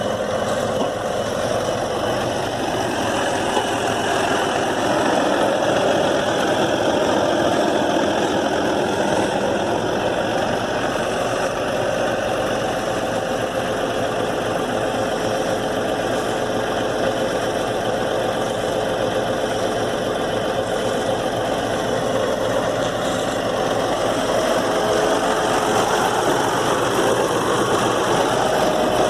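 Scania P94D220 truck's diesel engine idling steadily.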